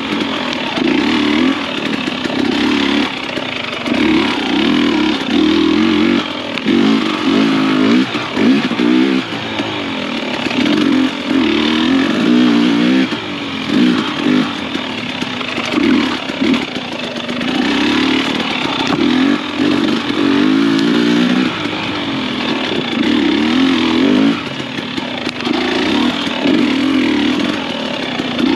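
Husqvarna TX300i 300 cc two-stroke dirt bike engine revving up and down in short throttle bursts, roughly one a second, the on-off throttle of picking through tight, technical singletrack.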